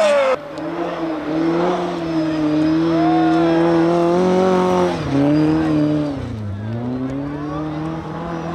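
Rally car engine running hard at high revs. The revs drop briefly about five seconds in, then fall further and pick up again as the car goes past. A different car's engine is cut off abruptly just after the start.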